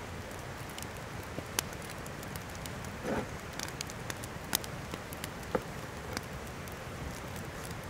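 Wood fire burning, a steady hiss with frequent sharp crackles and pops from the logs, one fuller pop about three seconds in.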